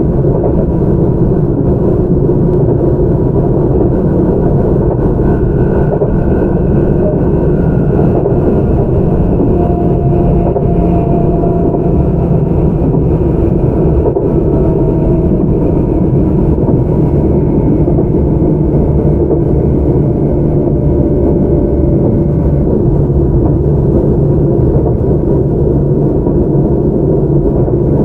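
Tobu 634-type resistance-controlled electric train running, heard from inside the car: a steady, loud rumble of wheels on rail and running gear. Faint whining tones come and go over it.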